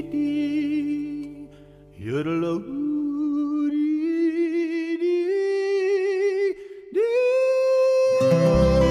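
Background song: a solo singer holds long, wavering notes over sparse accompaniment, and the band comes back in near the end.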